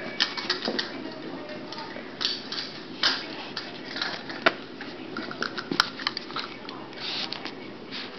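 Irregular clicks, taps and scuffles of a small dog scampering and playing with a toy on carpet, with one sharp click just before the six-second mark standing out.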